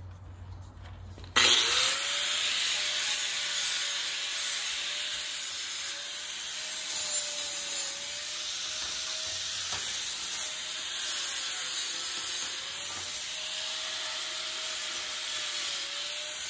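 Angle grinder with a 40-grit flap disc grinding down welds on a metal hitch. It starts up abruptly about a second and a half in, then runs with a motor whine that sags and recovers as the disc is pressed to the metal, over a scratchy grinding hiss.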